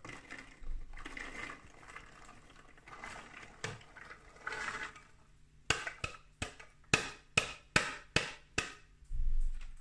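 Pomegranate arils rustling as they are poured from a plastic cup into a juicer's hopper, in several pours. Then about eight sharp plastic knocks, roughly three a second, as the cup is tapped against the hopper to shake out the last seeds, and a short low thump near the end.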